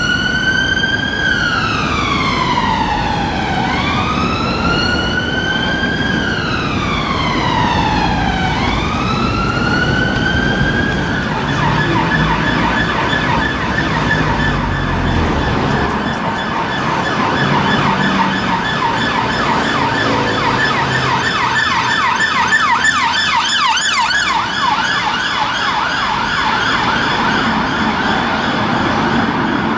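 London emergency vehicle sirens in traffic: first an ambulance's slow wail, rising and falling about once every four seconds, then about a third of the way in a fast warbling yelp takes over, quickening further past the middle. Low traffic noise runs underneath.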